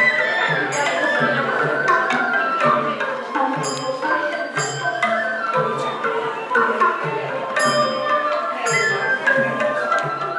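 Traditional Myanmar dance music: a melody over a steady low drum beat of about three strokes every two seconds, with sharp percussion clicks here and there.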